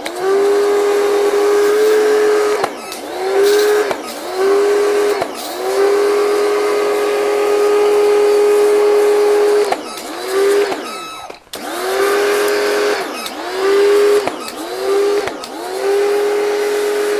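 Muc-Off portable pressure washer's electric pump motor running with a steady hum and spray hiss. It cuts out and spins back up to speed about ten times as the trigger is released and squeezed while rinsing a bike.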